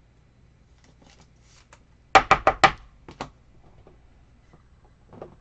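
A quick run of about five sharp knocks a little over two seconds in, then one more a second later: cards being handled and knocked against the tabletop.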